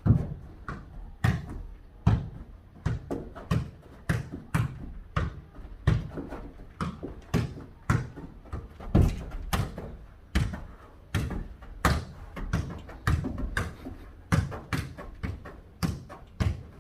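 A ball kicked back and forth and bouncing during a foot-volleyball rally: a quick, irregular series of thuds, about two a second.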